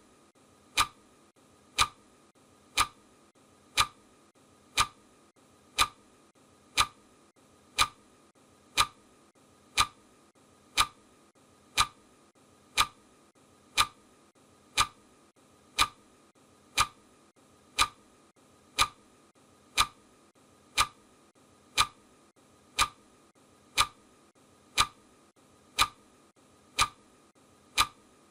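Clock ticking once a second with even, sharp, identical ticks, the ticking sound of a countdown timer.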